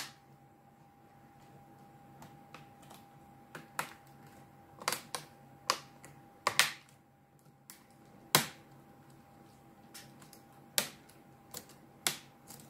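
Replacement HP Pavilion 15 laptop keyboard being pressed down across its surface to snap it into the deck, giving a dozen or so sharp, irregular clicks and snaps. The loudest comes about eight seconds in.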